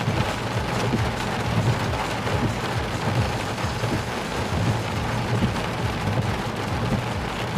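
Steady rain falling during a thunderstorm, an even hiss with a low rumble running beneath it.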